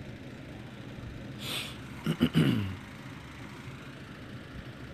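A man's short breath, then a brief low murmur falling in pitch about two seconds in, over a steady low background hum.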